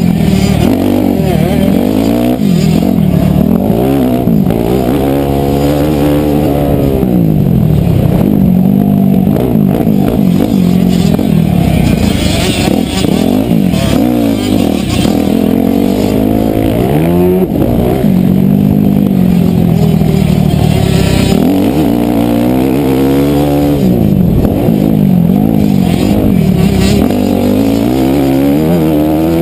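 Motocross dirt bike engine, heard from the rider's helmet camera, revving up and dropping back again and again as the bike accelerates and backs off through the track's corners and straights.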